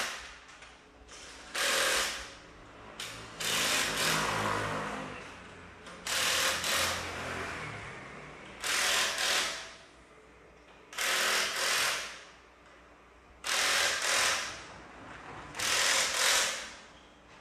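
Impact wrench hammering a refitted rear wheel's lug nuts tight, in about seven bursts of roughly a second each, two to three seconds apart, one nut after another.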